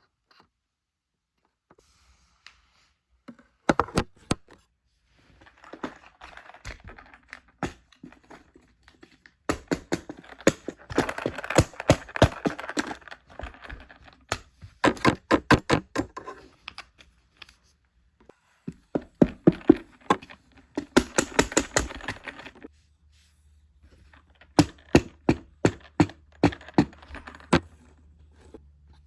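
Bursts of rapid, sharp clicks and taps, each burst lasting one to four seconds, with short pauses between them.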